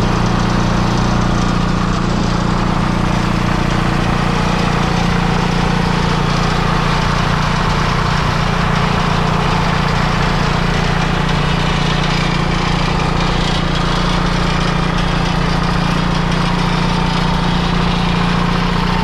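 Allis-Chalmers HD5 crawler's GM two-cylinder two-stroke diesel engine idling steadily, at an even pitch and level throughout.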